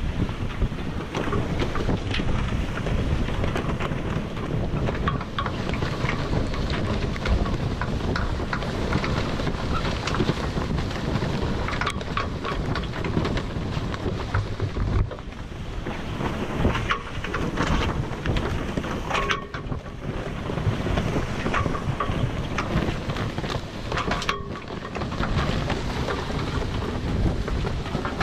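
Strong wind buffeting the microphone over the rush of sea water along a sailing catamaran's hulls under way in choppy seas: a loud, gusting noise with frequent short knocks.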